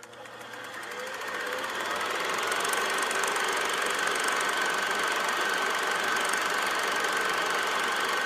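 Film projector sound effect: a steady mechanical whir with a rapid fine clatter and a thin steady whine, swelling in over the first two seconds and then holding level.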